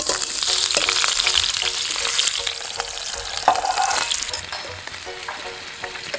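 Cubed raw potatoes sliding into a hot cast iron skillet. They hit with a loud sizzle that starts suddenly and dies down over about four seconds. A spatula stirs them in the pan.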